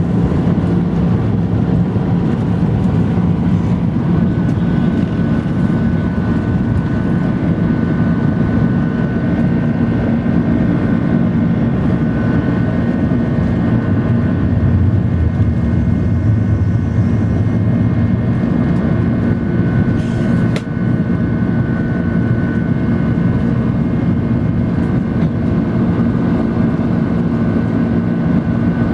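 Jet airliner's engines at takeoff power, heard inside the cabin during the takeoff and climb-out: a loud, steady roar with a steady high whine over it. There is one brief knock about two-thirds of the way through.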